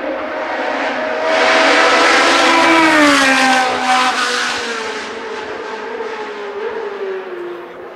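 Sports prototype race car passing at speed, its engine note rising to a peak and then dropping in pitch as it goes by about three seconds in, before fading away up the road.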